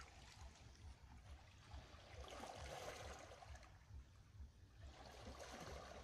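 Faint sea water lapping and washing over shore rocks. It swells twice, about two seconds in and again near the end, over a low rumble.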